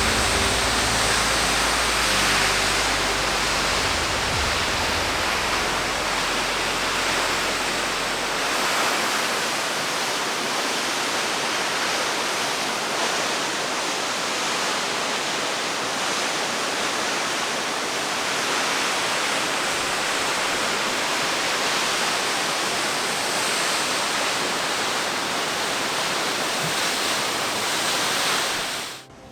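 Steady rushing roar of a tall waterfall pouring down a sheer cliff, with low background music fading out in the first several seconds. The water sound cuts off suddenly just before the end.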